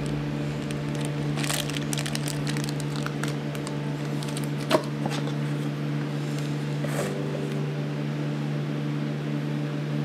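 Packaging rustling and small parts clicking as a box is opened and its bike part handled, with a sharp click about five seconds in, over a steady low hum.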